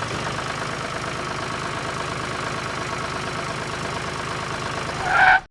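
Diesel engine running steadily at an even speed, like a tractor or truck engine. A short higher tone sounds about five seconds in, and then the sound cuts off suddenly.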